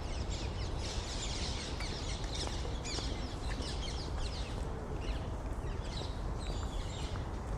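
City park ambience: many small birds chirping and twittering in a dense chorus over a steady low background rumble.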